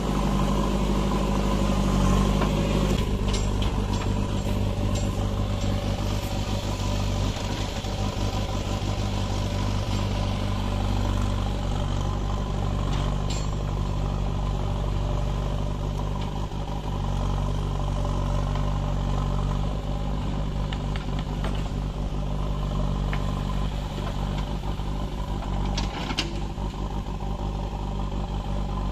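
JCB 3DX backhoe loader's diesel engine running steadily as the backhoe digs soil and loads it into a tractor trolley, with a few sharp knocks from the work.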